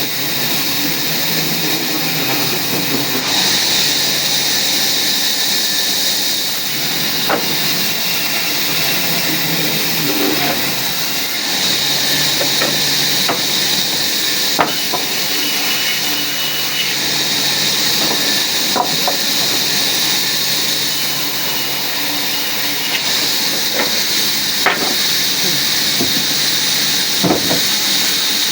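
Woodworking machinery running with a steady high hiss that swells twice, with a few sharp clicks and knocks scattered through.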